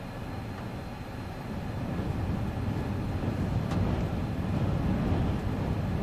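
Storm wind gusting against a stopped car, heard from inside the cabin as a low rushing noise that swells about two seconds in.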